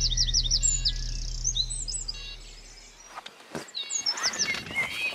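Birds singing in quick high chirps over a soft, low music bed that fades out about three seconds in. After that, more birdsong with scattered clicks and knocks.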